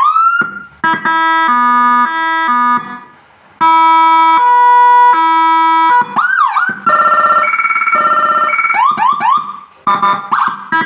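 Electronic siren module with Whelen 295R tones sounding through a speaker, cycling through several tones. It gives a rising sweep, a run of stepped notes, a held tone, quick up-and-down yelps, a fast-pulsing tone, then more yelps and another rise near the end.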